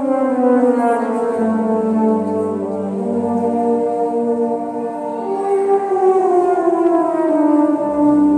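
Wind band playing a slow funeral march: brass and woodwinds hold sustained chords while the melody falls in two long descending phrases, the second beginning about five seconds in.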